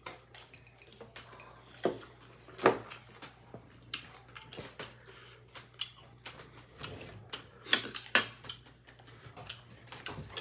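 Irregular clicks and smacks of people eating at a table: wet chewing and mouth smacks, with spoons tapping ceramic bowls and plates. The sharpest clicks come about two and three seconds in and again around eight seconds.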